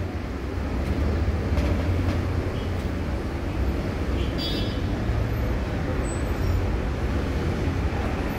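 Steady low background rumble, with a brief high-pitched tone about four and a half seconds in.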